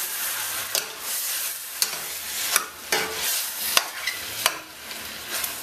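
Seasoned chicken pieces sizzling in a stainless steel pan of melted, browned sugar while a metal spoon stirs them, the spoon clicking sharply against the pan about once a second.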